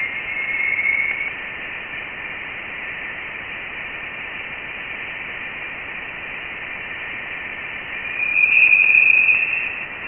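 Audio sonification of Voyager 1's plasma wave data from interstellar space: a steady hiss with high whistling tones over it. The tones swell louder about a second in and again near the end.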